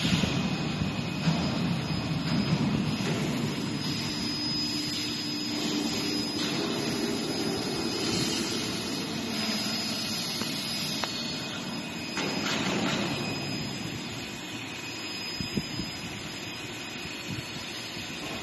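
Steady machinery noise, a constant dull din with a faint high-pitched whine.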